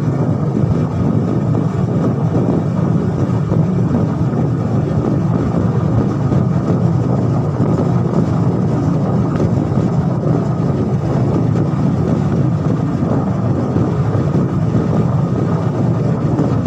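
Steady rumble of a moving road vehicle with wind buffeting the microphone.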